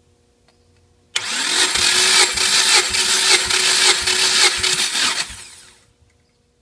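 Starter motor cranking a Subaru EJ205 2.0-litre turbocharged flat-four engine for about four seconds, as in a compression test, with a steady whine and a slow regular beat. It starts abruptly about a second in and dies away near the end.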